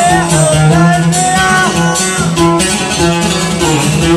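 Music: a passage of a Yemeni song between sung lines, with plucked strings carrying a gliding melody.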